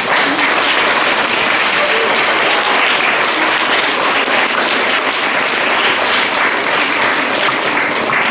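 An audience of schoolchildren applauding. The clapping starts abruptly and holds steady, with some voices mixed in.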